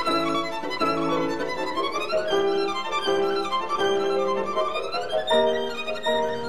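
Background music carried by a violin melody, a run of held notes with a few slides between them.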